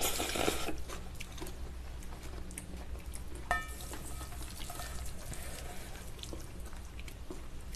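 Wet eating sounds of cold noodles in spicy sauce: a slurp of noodles at the start, then quieter chewing and chopsticks working noodles in stainless steel bowls, with a short clink about three and a half seconds in.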